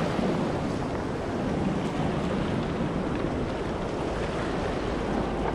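Shallow surf washing around a wader's legs, with wind buffeting the microphone: a steady rush of water and wind.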